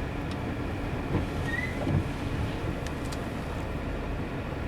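A car running at low speed with a steady low rumble as it is driven slowly.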